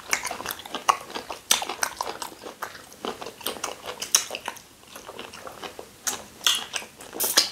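Close eating sounds of people swallowing fufu dipped in slimy ogbono soup: irregular wet mouth clicks and smacks, several a second, with short gaps.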